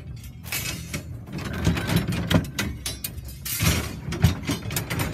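Iron rods with hooked ends clanking against one another and against the metal trailer as they are handled and pulled from a bundle: a run of irregular metallic clinks and knocks.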